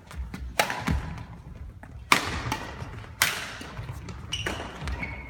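Badminton rally: rackets smacking the shuttlecock in sharp cracks, four strikes a second or so apart in the first three seconds, each echoing around a large sports hall.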